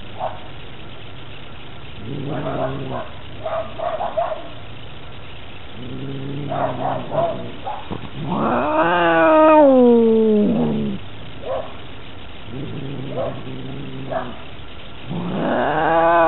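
A cat growling in low, drawn-out rumbles, broken by long wailing yowls that rise and then fall in pitch: one about halfway through and another starting near the end. These are the defensive growl-and-yowl of a cornered, threatened cat.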